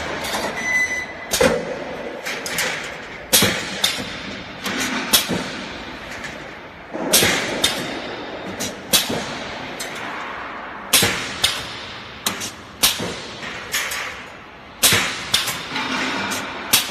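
Automatic wire mesh welding machine at work: an irregular series of sharp metallic clanks and knocks, roughly one every second or two and sometimes in quick pairs, over a steady mechanical hiss.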